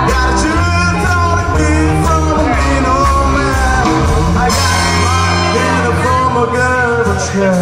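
A live big band playing swing-style rock and roll, with a horn section, upright bass, drums and a singer, all continuous and loud.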